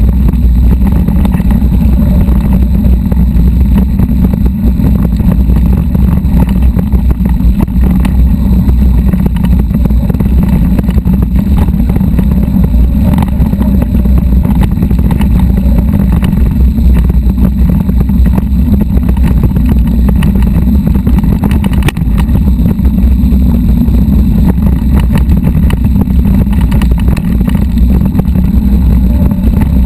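Loud, steady low rumble of wind buffeting a bike-mounted camera microphone and tyres rolling over a rocky dirt trail, with scattered small knocks and rattles.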